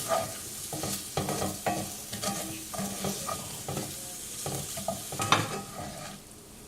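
Garlic shrimp sizzling in a frying pan while a spatula scrapes and scoops them out, in repeated short scrapes, with a sharper knock on the pan about five seconds in. It gets quieter near the end.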